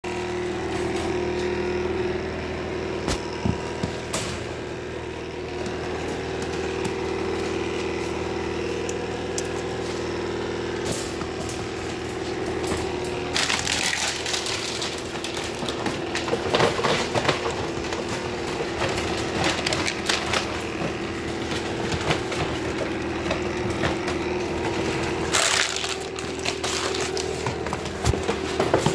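Close rustling and crackling of puppies pushing against and scrabbling around a handheld camera in a wire crate, over a steady hum. The crackles get busier about halfway through.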